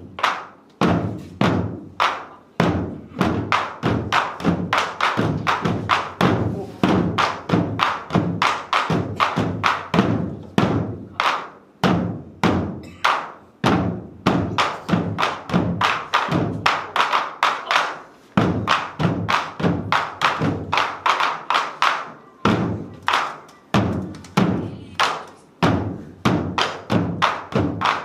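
Several Korean buk barrel drums beaten together in a fast, driving drum-dance rhythm, about three to four strikes a second, with a few brief breaks in the pattern.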